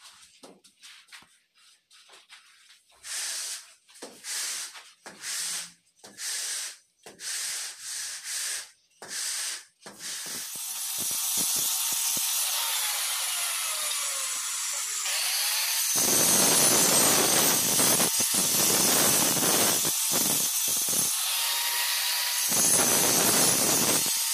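Handheld angle grinder cutting a ceramic tile, a loud steady cutting noise that grows heavier about two-thirds of the way in, with a few short breaks as the blade lifts off. Before it starts, there is a run of about seven short swishing scrapes.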